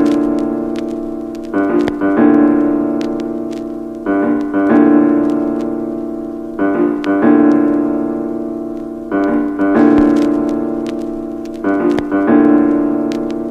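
Background piano music: sustained chords struck in quick pairs about every two and a half seconds, each slowly fading.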